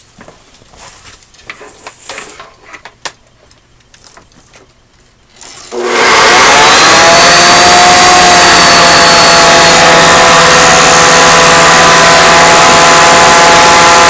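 A few light clicks and knocks as the Hoover Decade 80 upright vacuum is handled, then it is switched on about six seconds in. Its vertical-shaft motor spins up with a rising whine and then runs loud and steady.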